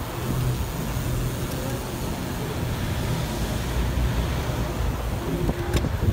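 Steady low rumble of air rushing past the microphone and road noise, recorded from a bicycle in motion on a city street with car traffic around it; a brief click near the end.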